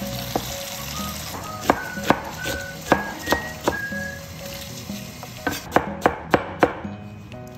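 Chinese cleaver chopping baby bok choy on a plastic cutting board: about a dozen sharp chops in two uneven runs, over the steady hiss of tap water running into a bowl.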